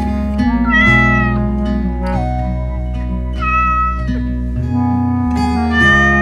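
A cat meowing three times, short gliding calls, over steady background music.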